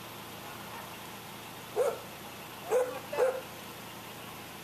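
A dog barking: a single bark about two seconds in, then two barks in quick succession about a second later.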